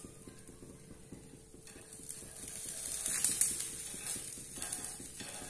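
A pancake frying in oil on a hot nonstick tawa: a fine, continuous crackling sizzle that grows louder about halfway through, with a metal spatula scraping under the pancake's edge.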